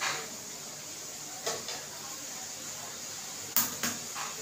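Eggs being cracked for the pan: a string of sharp taps and cracks of eggshell, with a quick cluster of three a little past three and a half seconds in. A steady hiss runs underneath.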